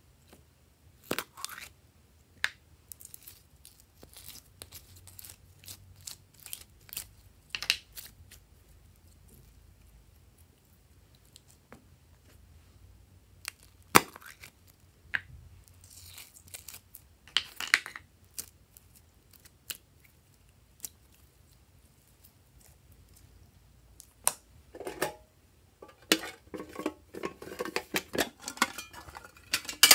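Hands handling plastic containers and packaging over trays of slime: scattered clicks, taps and short rustles, a sharp click about halfway through, and plastic crinkling near the end as a printed plastic pouch is worked open.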